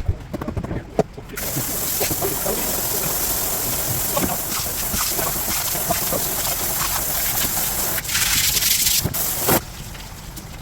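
Running water gushing and splashing, with scattered knocks of handling, as fish are rinsed during cleaning. The flow starts after a few knocks, gets louder near the end and then stops abruptly.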